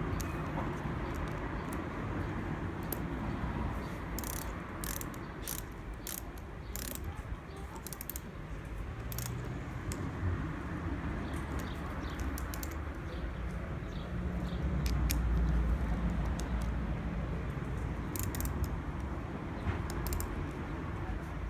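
Ratchet wrench clicking in short runs, once a few seconds in and again near the end, over a steady low rumble.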